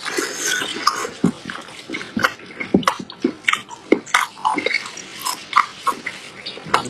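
Close-miked eating sounds: chewing with wet mouth clicks and smacks, several a second in an irregular run.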